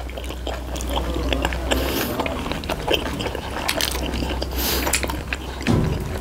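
Close-miked chewing of pork momos: a dense run of small wet clicks and mouth noises.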